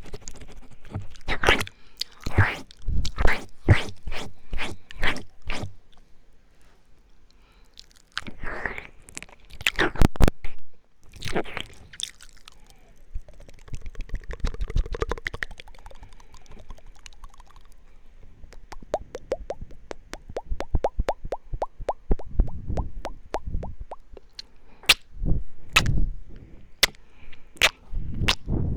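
ASMR mouth sounds right against the microphone: licking, smacking and mouth clicks in bursts with short pauses, including a quick run of small clicks about two-thirds of the way through.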